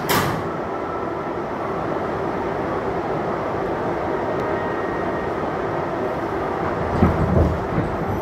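New York City Subway 7 train pulling out of a station: a sharp bang right at the start as the doors shut, then the car running with a steady rumble. From about seven seconds in, uneven low knocks as the wheels cross rail joints.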